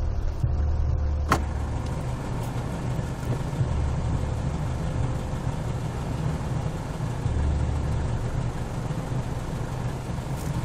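Car engine idling with a steady low rumble, with one sharp click about a second in.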